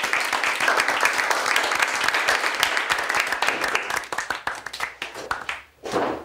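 A small group of people applauding with their hands, the clapping thinning out to a few separate claps and stopping about five seconds in. A short louder sound follows near the end.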